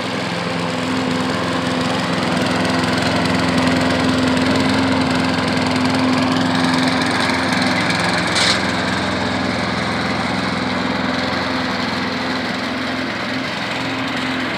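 Craftsman lawn mower's small engine running steadily, now starting and running again after its sheared flywheel key was replaced. There is a short knock about two-thirds of the way through.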